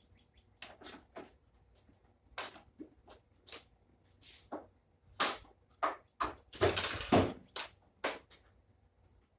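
Irregular clicks, knocks and clunks of an LG washer's cabinet being handled as its top panel is taken off, with a cluster of louder knocks about five to seven seconds in.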